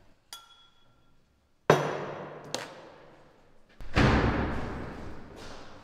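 A light clink of crockery, then two loud, heavy thuds about two seconds apart, each dying away slowly with a long echo. The second is deeper and heavier.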